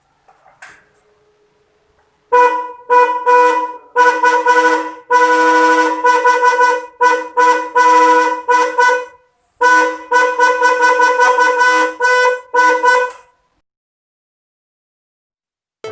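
Motorcycle snail-type electric horn, single-tone, sounded in a run of about fifteen honks, some short toots and some held longer, that stops a little before the end. There are a few faint clicks before the first honk.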